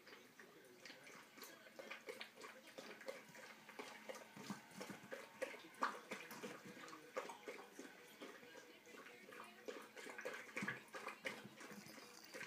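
Faint scattered clicks and rustling of a kitten moving about on the bedding of its wire cage.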